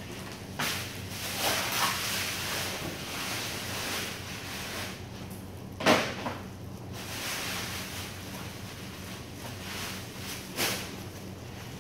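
Plastic sack rustling and scrunching as its gathered neck is handled and tied shut with twine, in irregular surges, the loudest about six seconds in and another near the end.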